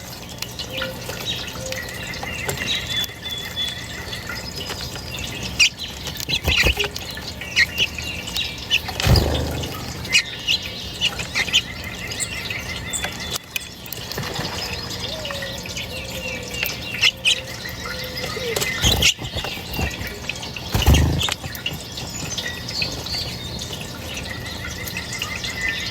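Songbirds chirping and calling, with a rapid trill that comes and goes several times over a faint steady low hum. Two loud low thuds, about nine and twenty-one seconds in.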